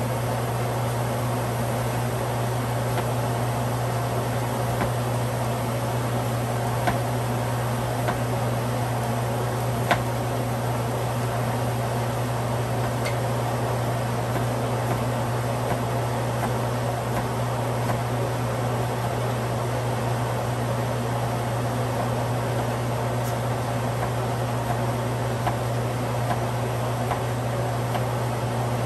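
Steady fan-like mechanical hum, with a few faint knife clicks on a cutting board while ginger is sliced.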